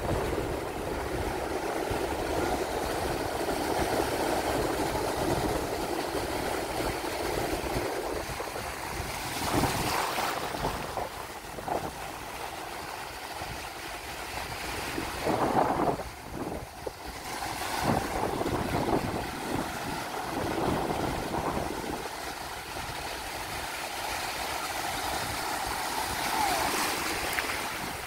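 Small sea waves breaking and washing through the shallows, with wind rumbling on the microphone. The surf swells louder several times.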